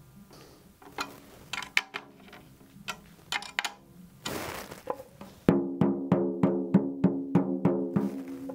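Tom-tom's Pinstripe batter head tapped with the fingertips while it is being tuned, each tap giving a short, pitched drum note as the tension is checked and evened out around the head. Scattered light taps and a brief rustle are followed, about halfway through, by a quick, even run of about ten louder taps, some four a second.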